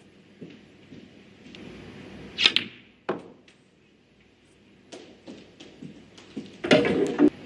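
Snooker balls clicking on the table: sharp clicks of the cue tip striking the cue ball and of balls knocking into each other, several spread out, with a louder clatter near the end.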